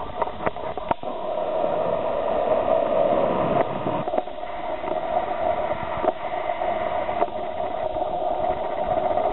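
Crowd noise from a basketball game on television: a steady din that swells over the first few seconds and then holds, with a few sharp clicks near the start.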